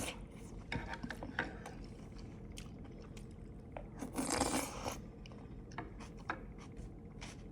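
Close-miked eating sounds: mouth noises from chewing raw vegetables, with scattered small crunches and clicks and a longer rasping scrape about four seconds in.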